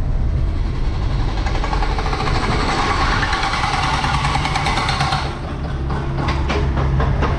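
Vehicle engine running with road noise while driving. From about one and a half to five seconds in, a loud, fast, harsh rattle joins it.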